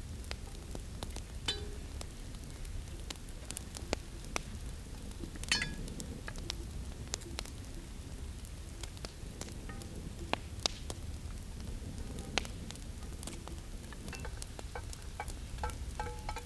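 Meat and vegetables frying in a cast-iron Dutch oven over a campfire: a steady sizzle with scattered sharp pops and crackles, a few each second.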